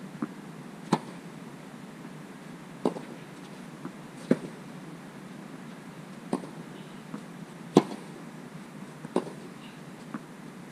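Tennis balls struck by racquets and bouncing on the court in a baseline rally: sharp pops every second or two, the hits near the camera much louder than those from the far end.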